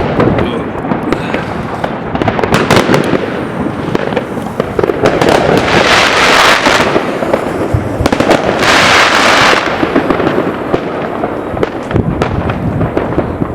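Fireworks going off in quick succession: many sharp bangs and crackles, with two longer stretches of crackling hiss about six and nine seconds in.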